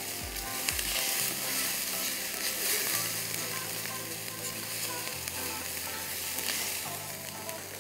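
Chopped onions sizzling as they fry in oil in a nonstick wok, stirred with a silicone spatula while they brown toward golden.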